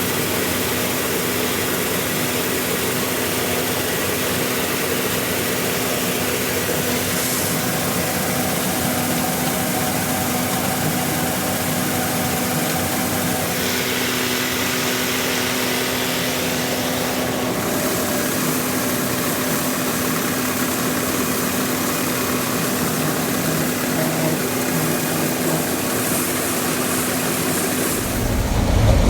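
Gleaner M2 combine running steadily under load while harvesting soybeans, a loud, even engine and machinery drone with a held tone. Near the end it turns louder and deeper.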